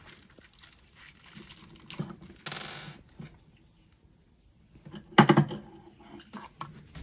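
A small plastic bag of screws being handled: crinkling rustles and light metallic clicks of the screws. About five seconds in comes one short, loud vocal sound.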